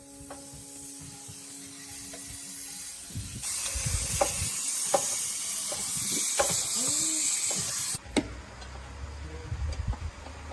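A steady hissing sound, like a spray or rush of air, starts about three seconds in and cuts off suddenly near the end, with scattered clicks and knocks around it.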